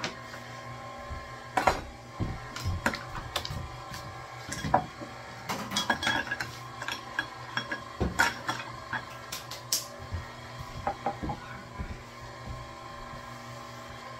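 Irregular clinks and clatter of kitchen utensils, measuring cups and mixing bowls being handled and set down on a wooden counter, busiest in the middle, over a steady background hum.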